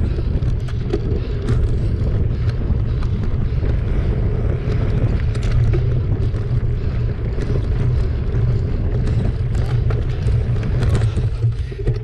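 Mountain bike riding fast over a rough dirt singletrack: a steady low rumble of wind on the microphone and tyres on the ground, with frequent small clicks and knocks from the bike rattling over the bumps.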